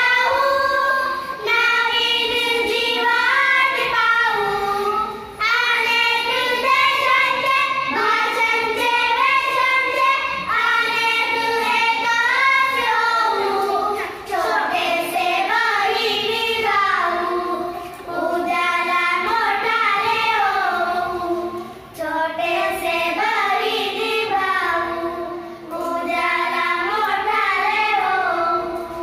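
A group of young schoolgirls singing a Marathi poem together into a microphone, with no instruments, in sung phrases with short breaks between lines.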